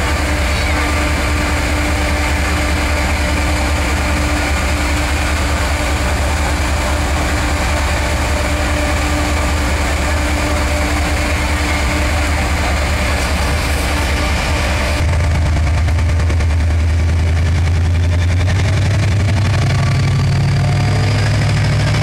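Class 68 diesel-electric locomotive's Caterpillar V16 diesel engine running steadily at idle. About two-thirds of the way through the sound turns suddenly deeper and louder, and the engine note then climbs slowly in pitch as the revs rise.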